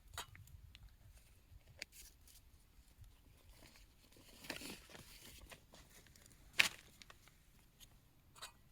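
Quiet, scattered clicks and taps of small objects being handled, with a brief rustling, tearing-like noise about halfway through and one sharper click shortly after.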